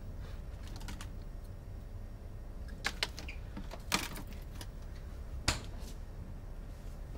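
Light clicks and rattles of plastic food containers being handled in a fridge, with sharper clicks about three, four and five and a half seconds in, over a low steady hum.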